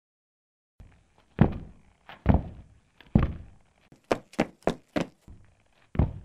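Heavy thudding footsteps: single thuds about once a second, with a quicker run of four near the middle.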